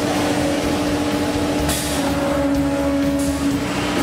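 Workshop machinery running, a steady mechanical drone with a hum that dips slightly in pitch about halfway through.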